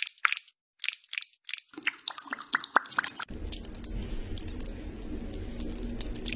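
Sharp little clicks and taps of a metal spoon as grapefruit pulp is dropped into a cup. From about three seconds in comes a steady sound of whipped cream being squeezed from a piping bag through a metal nozzle.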